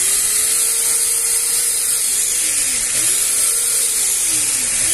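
Ninja blender base's brushed electric motor running at full speed, a loud steady high whine whose pitch wavers up and down, switched on by holding its safety switch down. It runs again now that its carbon brushes have been freed from sticking and make contact.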